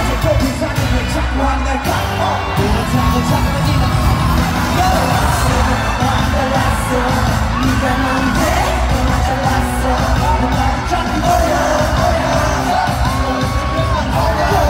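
Live K-pop concert music played loud through an arena sound system: sung vocal lines over a heavy bass, recorded from within the audience.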